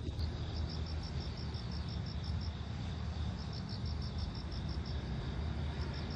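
Crickets chirping: runs of short, high, evenly spaced chirps, about five or six a second, over a low steady rumble.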